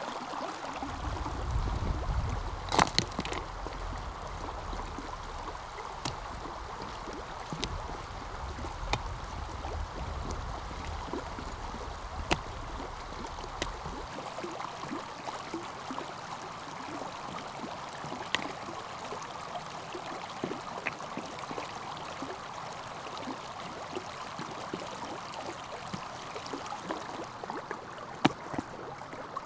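Stream running with a steady rush of water, with scattered light clicks and taps over it and a low rumble through the first half.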